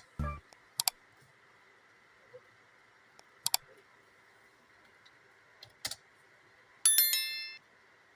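A few sharp isolated clicks, some in quick pairs, with a short low thump just after the start. Near the end comes a brief ringing sound of several steady tones that dies away in under a second.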